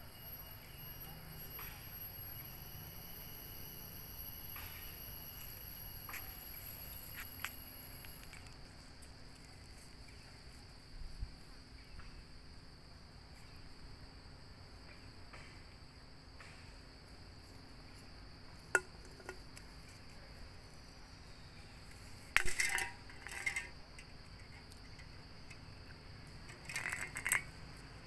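Steady high-pitched insect drone, typical of crickets or cicadas. A thin higher tone drops out about a third of the way through. A sharp click comes about two-thirds in, and brief clusters of sharp sounds follow, one soon after and one near the end.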